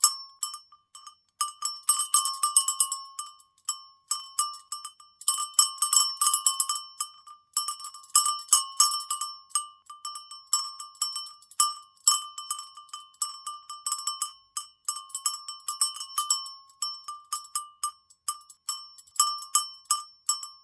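Cowbell being shaken, its clapper clanking against the bell in rapid, irregular bursts with short pauses between. Each strike rings at the same bright pitch.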